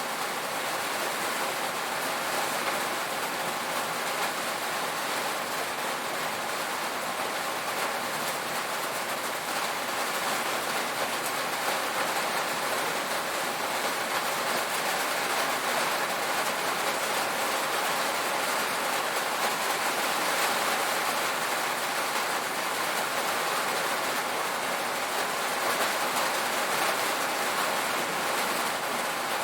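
Steady heavy rain pattering on a tin roof, a continuous dense hiss of drops without breaks.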